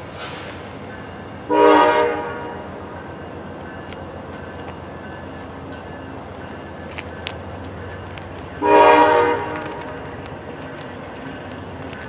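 Air horn of a VIA Rail GE P42DC locomotive, sounded twice as the train departs: a blast of about a second, a second and a half in, and another about nine seconds in. A steady low rumble from the train runs between the blasts.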